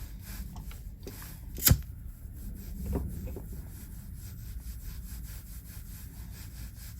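A lighter flame burning with a steady low rumble, heating a solder seal wire connector to shrink and melt it onto the wires. One sharp click comes a little under two seconds in.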